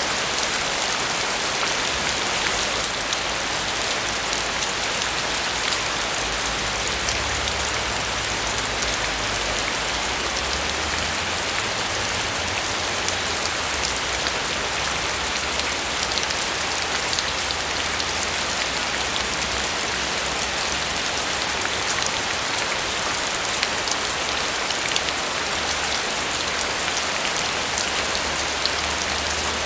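Steady rainfall, an even hiss of rain with many small drops pattering on a surface, unchanging in level.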